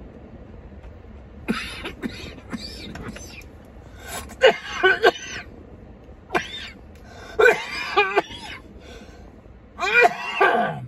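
A man coughing hard in about five separate fits, choking because a salad crisp went down the wrong pipe.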